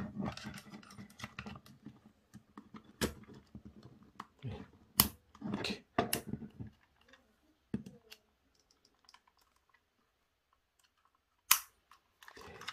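Hand-assembly noises from the plastic nozzle of a Bosch Glue Pen as a small ring is worked into place with a thin metal pick: light rustling and scraping, then scattered sharp clicks, with a quiet stretch before one last loud click near the end.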